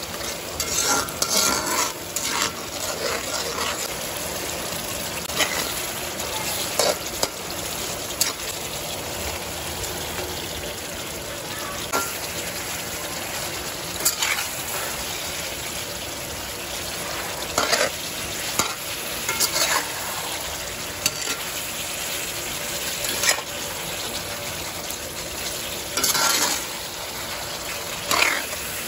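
Sambal chili sauce sizzling and bubbling in a honeycomb-patterned wok with fried cencaru (torpedo scad) fish in it. A spatula stirs and scrapes the pan in short strokes every few seconds.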